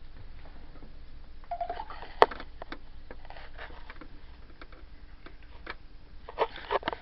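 African grey parrot making small sounds: scattered clicks and taps, a short low note about a second and a half in, one sharp click just after it, and a quick cluster of clicks near the end.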